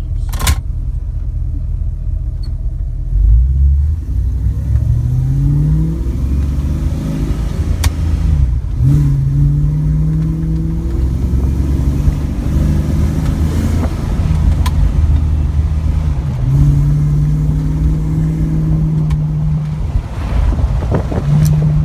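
Car engine accelerating from a start and working up through the gears of an automatic transmission shifted by hand with a ratchet-type shifter: the engine note climbs and then drops back at each upshift, about three times.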